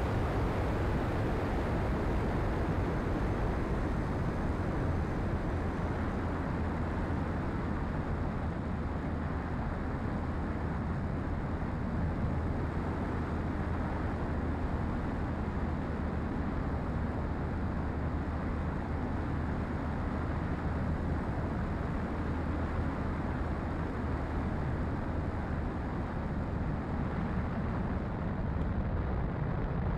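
Radio-controlled model Cessna's motor and propeller droning steadily in flight, heard from the onboard camera with wind rushing over the plane and microphone.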